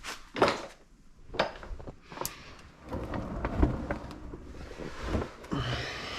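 Irregular handling noise from wiring being worked by hand: clicks, scrapes and rustling, with a couple of dull thuds about three and a half and five seconds in.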